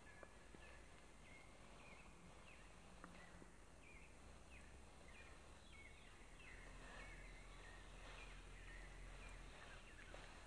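Faint outdoor ambience: a small bird chirping with short falling notes, about one or two a second, over a steady low rumble.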